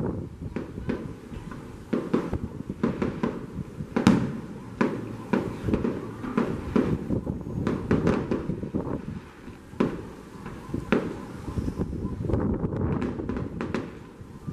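Fireworks going off: a fast, irregular string of bangs and crackles from bursting aerial shells, the loudest bang about four seconds in.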